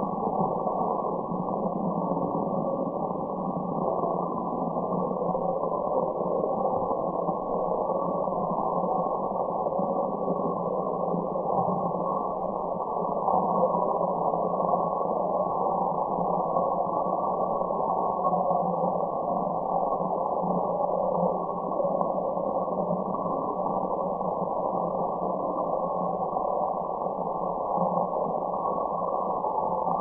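Steady relaxation noise track, a white-noise-style hiss with the high end cut off so it sounds dull and muffled. It stays even and unchanging throughout.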